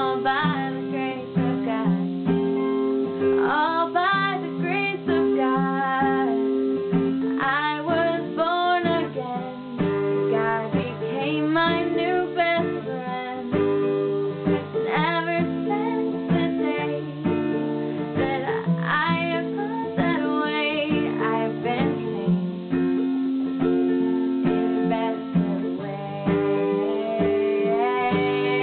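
Acoustic guitar strummed, with a woman singing over it.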